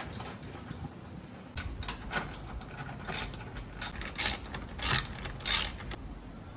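Hand-tool work: a run of about seven short, irregular mechanical strokes over a few seconds, the later ones louder, stopping about a second before the end and leaving a faint steady hiss.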